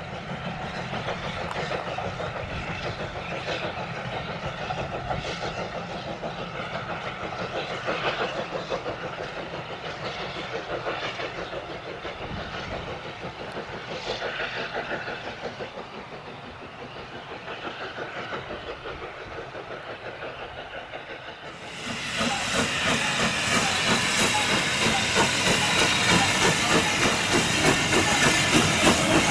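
Steam locomotive running with a quick rhythmic beat; about three-quarters of the way through, a loud, steady hiss of steam comes in over it.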